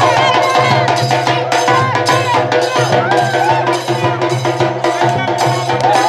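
Upbeat dance music with a steady percussive beat and a singing voice over it, played loud.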